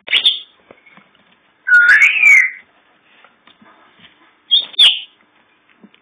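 Yorkshire terrier puppy whining in high-pitched cries: a short one at the start, a longer rising-and-falling whine about two seconds in, and two quick yelps near the end.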